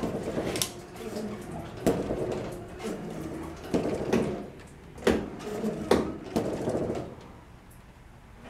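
Newly installed windshield wiper on a 1949 GMC pickup running across wet glass: the wiper motor whirs, with a clunk at each end of the stroke about every one and a half to two seconds. It stops about seven seconds in as the wiper parks.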